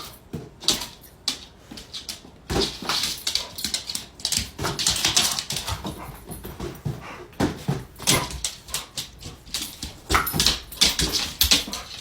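American bully dog making whimpering sounds among irregular short scuffling noises.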